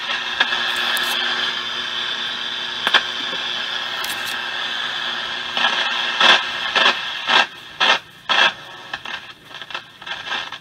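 Hallicrafters S-120 shortwave receiver's speaker putting out static while being tuned across the band: a steady hiss with faint steady tones at first, then, from about halfway, choppy bursts of sound as the tuning is rocked back and forth.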